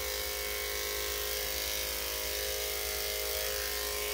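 Corded electric dog clippers fitted with a number 10 blade running with a steady, even hum as they trim a dog's coat.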